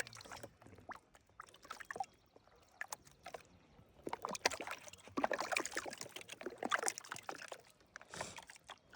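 Water splashing and sloshing, with scattered knocks and clicks; denser splashing in the middle.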